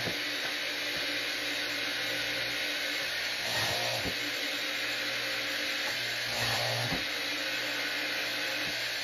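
Maksiwa LBP13 pneumatic line boring machine running steadily, its drill motor spinning the bits as it bores rows of shelf-pin holes in plywood panels, with a few short knocks.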